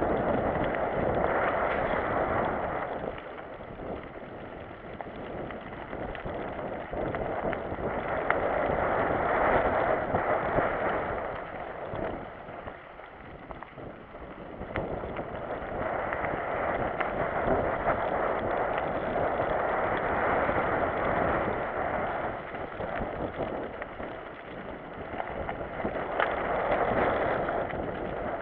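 Mountain bike riding along a wet trail: a steady rush of tyre and wind noise, swelling and fading several times.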